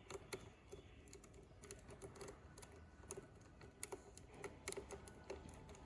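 Faint, irregular metallic clicking and scraping of a snake rake lock pick being worked in and out of a cabinet lock under tension from a tension wrench, raking the lock open.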